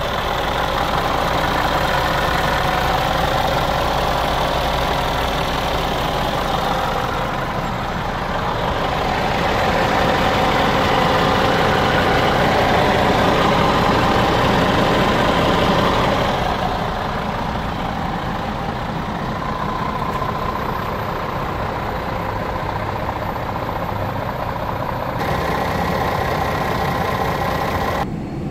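Scania R410 Euro 6 truck's straight-six diesel engine idling steadily, louder for several seconds midway and duller near the end.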